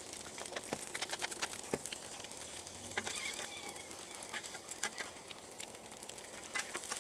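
Eggs, bacon and sausages sizzling on a hot steel flat-top griddle, with frequent small crackles and pops of spattering grease. A brief high chirp about three seconds in.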